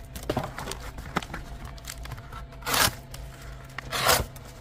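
Pocket-knife blade slicing through corrugated cardboard, two long ripping cuts about a second and a half apart, the second near the end, with lighter rustling and clicks of the cardboard being handled before them.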